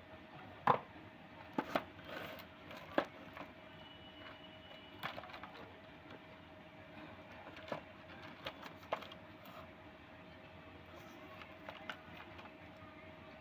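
Hands handling earbud packaging and its contents: scattered sharp clicks and light taps, the loudest about a second in, over a faint steady background tone.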